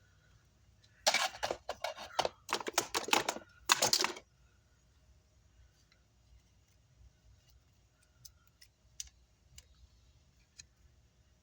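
A rapid run of sharp clicks and rattles lasting about three seconds, starting about a second in, from small metal tools and electronic components being handled at a repair bench, followed by a few faint ticks.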